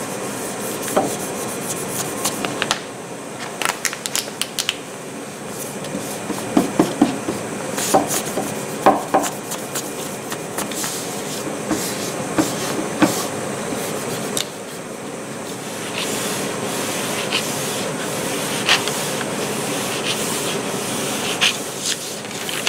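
Hands peeling a clear plastic film off a wooden panel and rubbing over the wood, with crinkling plastic and paper and scattered sharp clicks.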